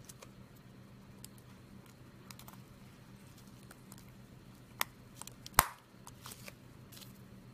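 Small plastic clicks and taps of laptop keycaps being handled and pressed onto an Acer Aspire backlit keyboard, the loudest a single sharp snap a little past halfway as a keycap latches into place.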